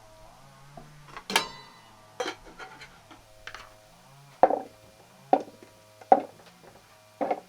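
A series of about seven sharp knocks, irregularly spaced roughly a second apart, like wood striking wood.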